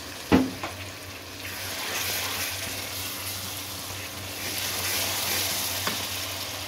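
Onion-tomato masala sizzling in hot oil in a pot as a little water goes in and it is stirred with a spatula. The sizzle swells from about a second and a half in. Two sharp knocks right at the start, the first the loudest sound.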